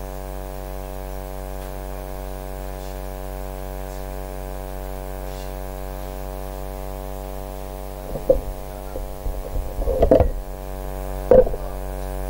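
Steady electrical mains hum with a buzzy edge. About two-thirds of the way in, a short cluster of thumps and knocks rises over it, the loudest near the end.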